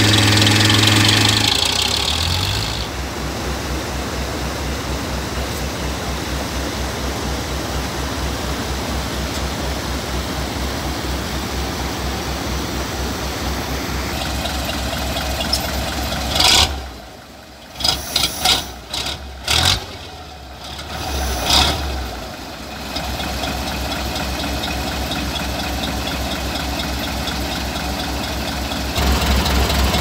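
A logging truck's engine revving high at first, then running steadily with a low chugging pulse while the truck sits with its wheels dug into mud. Just past the middle the engine sound drops away, broken by a few short loud thumps, then it comes back and rises again near the end.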